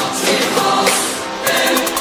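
Music with choir-like singing. It dips briefly about a second in, then comes back fuller about a second and a half in.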